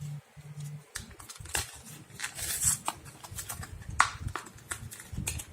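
A pack of alkaline batteries being handled and opened: scattered light clicks and knocks with a brief plastic rustle, and a sharper click about four seconds in.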